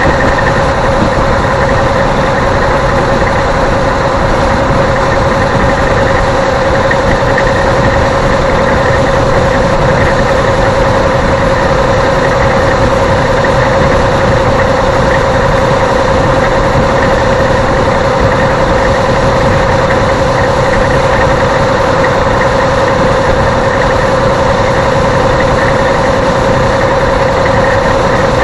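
Steady engine and road noise inside a vehicle cruising on a highway, with a constant droning hum.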